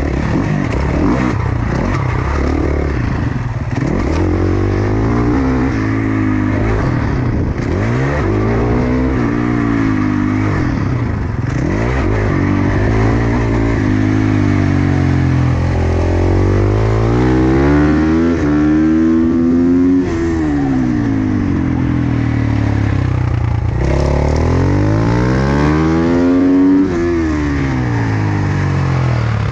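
Single-cylinder four-stroke supermoto engine heard from on board, revving up and falling back again and again as it is ridden hard through the gears. There is a long climb in pitch about two-thirds of the way through and a sharp drop near the end. Wind rushes over the microphone throughout.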